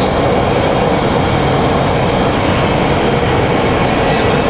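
Steady loud running noise inside a Nanchang Metro Line 2 car as the train travels through a tunnel: wheels on rail and rushing air, with a faint steady hum.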